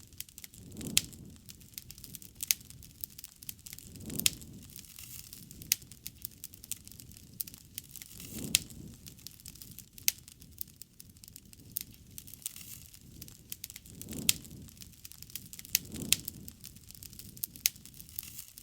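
Wood fire crackling, with frequent sharp pops and a low, soft rush that swells up now and then.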